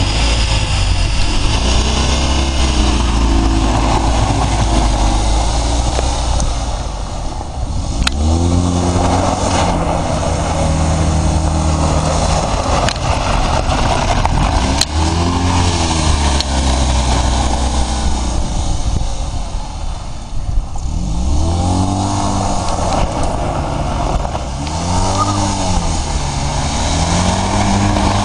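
Tata Nano's engine run hard through drifting circles on loose dirt, held steady at first and then repeatedly revved up and dropped back from about eight seconds in, over the rough scrub of the tyres sliding on the dirt.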